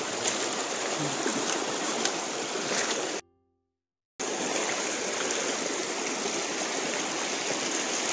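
Shallow river water rushing steadily over a stony bed and a line of rocks. The sound drops out to dead silence for about a second just after three seconds in, then the rushing returns.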